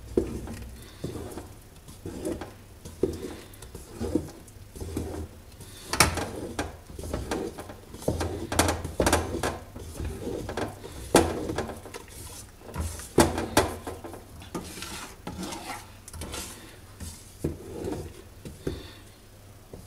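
Wooden stick stirring a thick sesame and pine-seed paste in an aluminium pot: repeated scraping strokes about once a second, with sharp knocks of the wood against the pot's side, most of them in the middle stretch.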